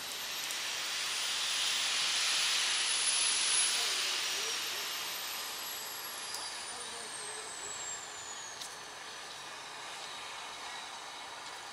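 A train of coaches being shunted slowly through a rail yard. A broad hiss swells over the first few seconds and fades away, and a thin high whine slides slowly downward in the middle.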